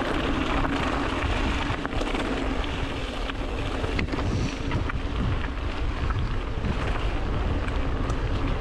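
Wind buffeting the microphone and mountain bike tyres rolling over a gravel track during a descent, with scattered clicks and rattles from stones and the bike.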